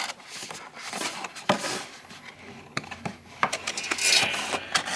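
Action figure packaging being handled and turned over: irregular taps and clicks with rustling, busiest about four seconds in.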